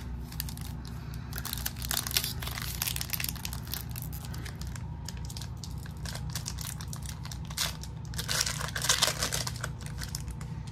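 Foil trading-card pack wrapper crinkling and tearing as it is opened, in irregular crackles with a denser burst near the end, over a low steady hum.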